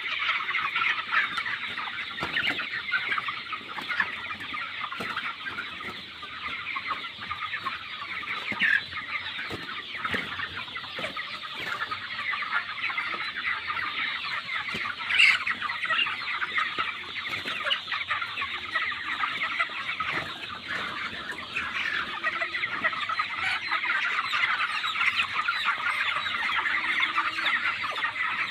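A large flock of broiler chickens chirping and clucking continuously in a dense chorus of many overlapping calls, with one sharper, louder sound about halfway through.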